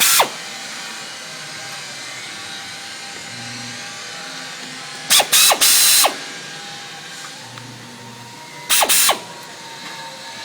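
Cordless drill-driver run in three short bursts, each winding down in pitch as it stops, backing out the screws that hold the aluminum door jamb to the steel post.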